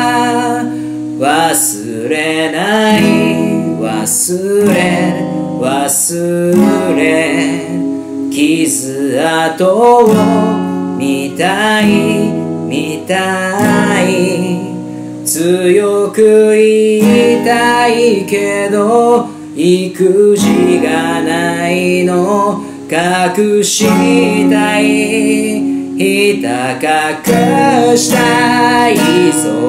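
A man singing a ballad in Japanese to his own strummed acoustic guitar.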